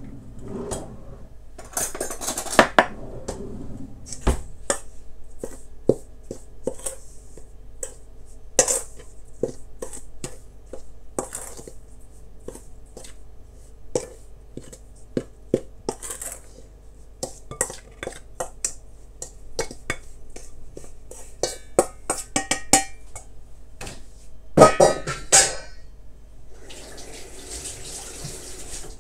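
Kitchen utensils clinking and knocking against bowls and dishes: irregular sharp clinks, some left briefly ringing, busiest about two seconds in and again near the end, with a short hissing rush just before the end.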